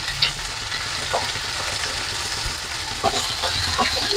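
Raw sliced onions, green chillies and curry leaves sizzling in hot oil in a non-stick kadai as they start to sauté, stirred with a wooden spatula that scrapes and taps on the pan a few times, most often near the end.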